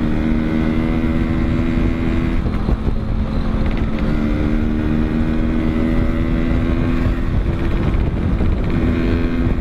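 Suzuki Shogun underbone motorcycle's engine and exhaust running at steady road speed under a heavy rumble of wind and road noise. The engine note eases off briefly about two and a half seconds in and again around seven seconds, then picks back up.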